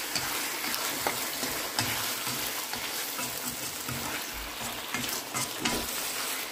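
Diced chicken breast sizzling in hot oil in a nonstick wok as it is stir-fried with chopsticks. A few light clicks of the chopsticks against the pan come through the sizzle.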